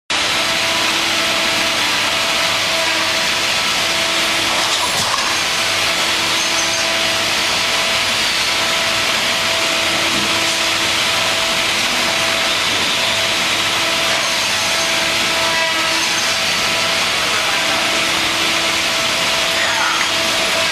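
C.R. Onsrud CNC router machining, its spindle cutting steadily with a loud, even hiss of cutting noise and a faint steady tone over it.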